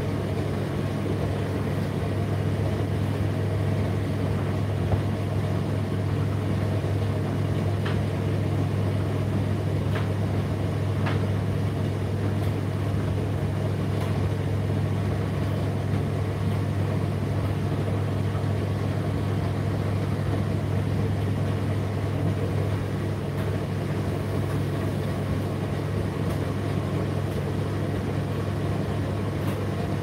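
Indesit IDC8T3 condenser tumble dryer running mid-cycle: a steady low hum from the motor and turning drum, with a few faint ticks about a third of the way in.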